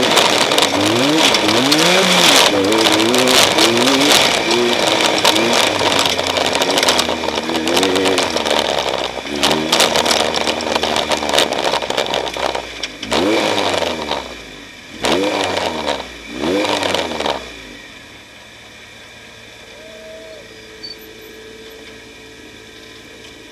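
Off-road race vehicle's engine pulling hard, its pitch climbing and falling again and again over a loud rushing noise. Near the end it is revved in three short bursts, then cuts out about eighteen seconds in, leaving a low steady hum.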